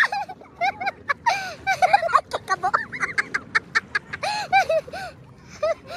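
Children and adults laughing and shrieking in quick runs of high, bouncing calls, with quick splashes of thrown water.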